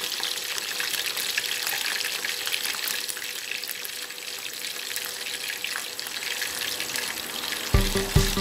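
Chicken pieces deep-frying in hot oil in a pot: a steady sizzling crackle of bubbling oil. Background music with a beat comes back in near the end.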